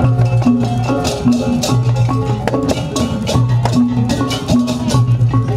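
Percussion music with a quick run of struck, pitched notes like a mallet instrument over a repeating low bass figure, with sharp percussive strokes throughout.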